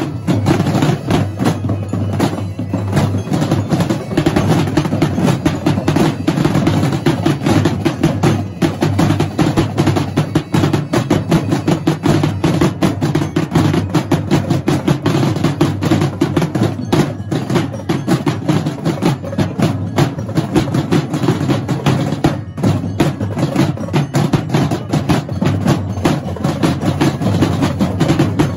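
A massed drumline of marching snare drums and other drums played with sticks, many players beating fast, dense rhythms together without a break.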